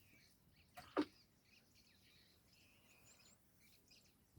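Faint wild birds chirping in a quiet background, with one short sharp click about a second in.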